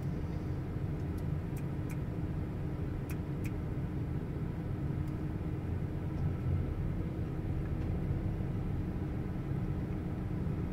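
Steady low rumble of a car idling while stopped, heard from inside the car, with a faint steady hum and a few light clicks.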